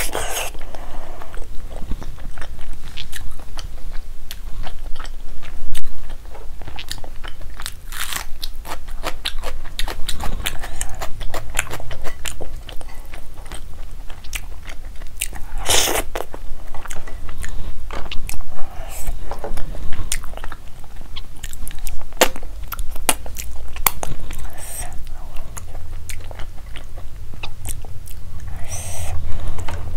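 Close-miked mouth sounds of eating palak paneer and rice by hand: wet chewing and smacking with frequent small clicks, broken by a few louder crunches, the loudest about halfway through.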